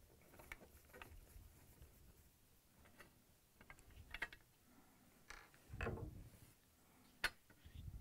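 Faint scattered clicks and scrapes of a Torx screwdriver turning screws out of a dishwasher's metal lock cover plate, with one sharper click near the end.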